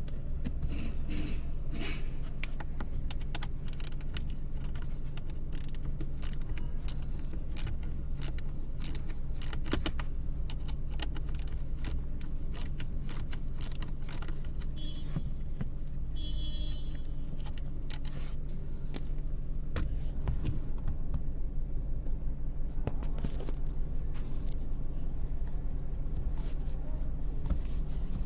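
Car AC blower motor running with a steady hum and an irregular clicking, jangling rattle over it: the abnormal blower noise. Two short high beeps come about halfway through.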